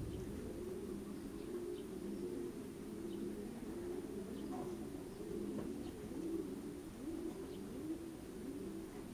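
Racing pigeons cooing, low overlapping coos from several birds that carry on without a break.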